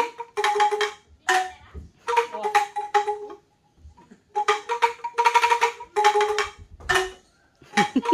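Two bamboo angklungs shaken in turn, each rattling out its own single note in short bursts of about half a second to a second, the two pitches alternating, with a pause about midway.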